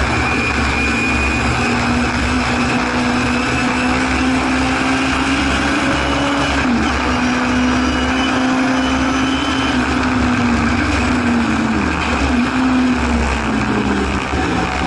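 Singer Chamois racing saloon's rear-mounted Hillman Imp four-cylinder engine running hard, heard from inside the cabin on track. Its pitch climbs slowly, dips sharply about seven seconds in and climbs again, then falls away near the end, over a constant low rumble of road and wind noise.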